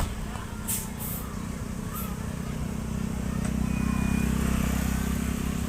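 Tour bus diesel engine running with a low, steady drone that grows louder from about halfway through and eases slightly near the end.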